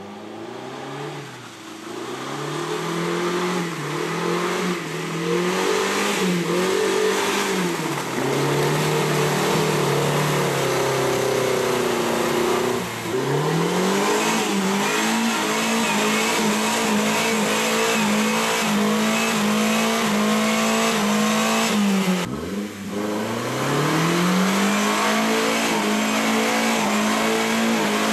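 Suzuki Grand Vitara's engine revving hard as it churns through deep mud with its wheels spinning. The revs rise and fall for the first half, then climb and hold high and steady, dropping briefly about two-thirds of the way through before climbing back up.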